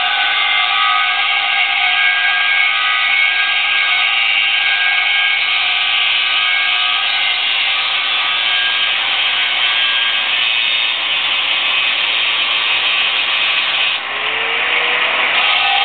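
Angle grinder with a grinding disc grinding the surface of a large steel dyno roller, a steady loud whine with many high tones, preparing the roller for gritting. About fourteen seconds in the grinding breaks off for a moment and a lower tone rises, then the grinding resumes.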